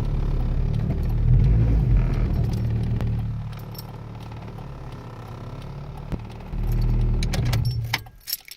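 Honda Civic engine running, dropping to a quieter level about three seconds in, then loud again for about a second before it cuts off. A jingle of keys follows near the end.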